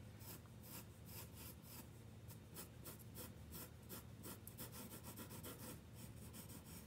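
Pencil scratching on graph paper as an outline is drawn, many short quick strokes, faint.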